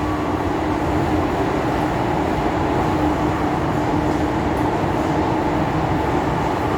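MTR M-train electric multiple unit running, heard from inside the car: a steady rumble of wheels on rail with a steady hum from the drive.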